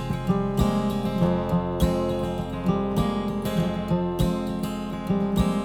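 Instrumental music: guitar strumming chords over a steady beat.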